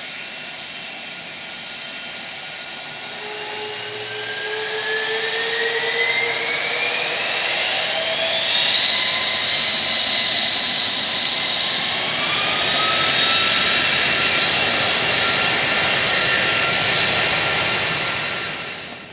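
Boeing 747 freighter's jet engines spooling up for takeoff. High whines climb steadily in pitch over several seconds as the loudness builds, then hold as a loud, steady high whine over the jet noise. The sound drops away near the end.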